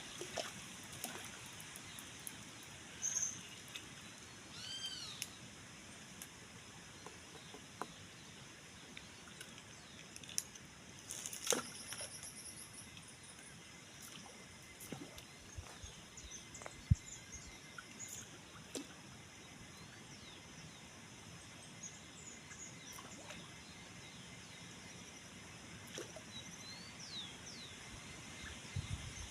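Birds calling now and then over a steady outdoor hiss: a run of arched chirps about five seconds in and a few falling chirps near the end, with scattered small clicks and knocks between.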